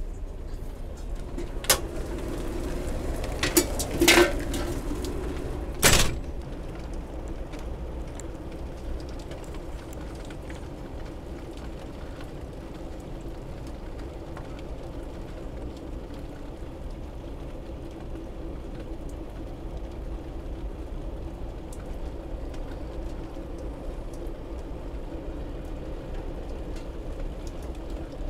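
A few sharp clunks in the first six seconds, then steady rain falling on pavement.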